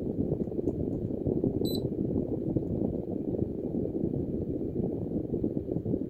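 Air blowing from a Mitsubishi room air conditioner's outlet buffets the microphone, a steady low rushing flutter. About a second and a half in comes one short, high beep.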